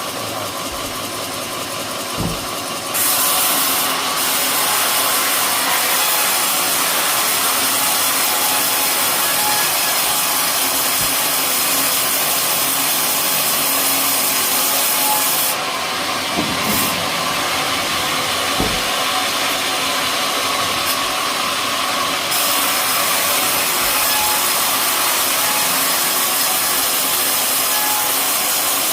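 Sawmill blade cutting through an old coconut palm trunk, over the steady running of the mill's engine. The cutting hiss comes in about three seconds in, eases for a few seconds past the middle, then picks up again.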